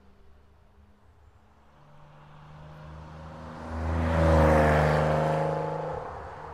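Car engine and road noise swelling to a loud peak about four seconds in, with engine tones shifting in pitch, then fading away.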